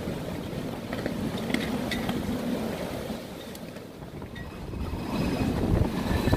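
Tropical-storm wind from Hurricane Florence gusting hard across the microphone, a deep rumbling rush that eases briefly midway and swells again near the end.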